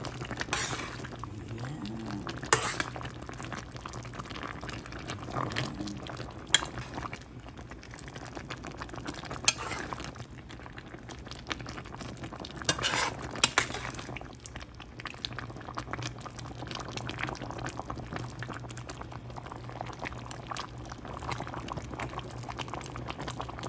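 A pot of chicken afritada, a tomato-sauce chicken stew, simmering and bubbling, with a metal utensil clinking against the pot a handful of times as it is stirred. A steady low hum runs under it.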